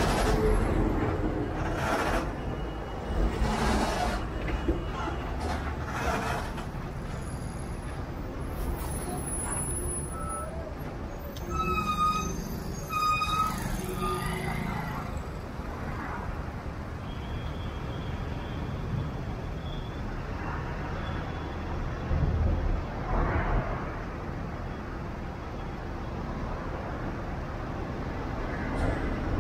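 Road traffic in a slow-moving jam: a steady low rumble of idling truck and car engines, with two short vehicle horn beeps about twelve seconds in.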